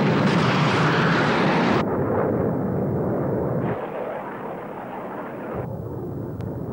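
Jet aircraft engine noise: a dense, rushing sound that is loudest at first and changes abruptly about two seconds in, and again near four and six seconds, each time duller and quieter.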